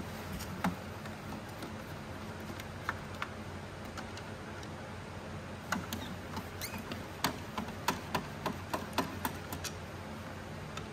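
Irregular small clicks, taps and scrapes of a screwdriver turning out screws and of the screws and tools knocking against the Sparkular II's casing. They are sparse at first and come thick and fast in the second half, over a faint steady low hum.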